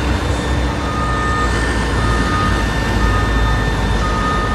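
Heavy diesel engine of a Caterpillar wheel loader running steadily under load, with a steady high whine. A reversing alarm beeps about once a second from about a second in.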